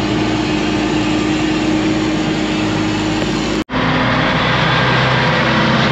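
Ford LT9000 truck's diesel engine running steadily. About two-thirds of the way through, the sound cuts out for an instant and comes back at a different pitch.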